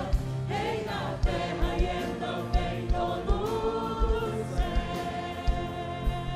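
Gospel song: a group of voices singing long held notes over a band, with a kick drum beating and cymbal hits.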